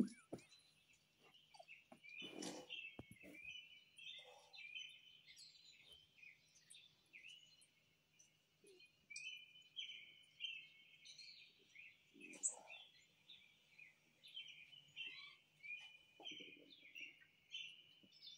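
Small birds chirping and twittering almost without pause, faint, from a bird video playing through a tablet's speaker, with a few soft rustling bumps.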